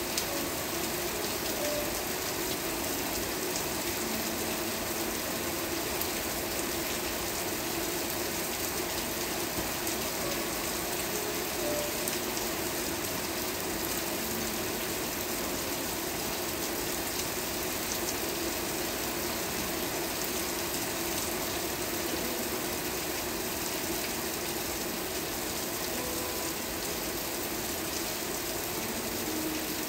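Steady rain falling, an even unbroken hiss with faint scattered drops.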